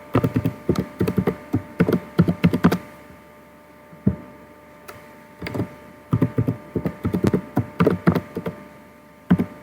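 Computer keyboard keys typed in two quick runs, entering a password, with a few single key presses between, over a faint steady hum.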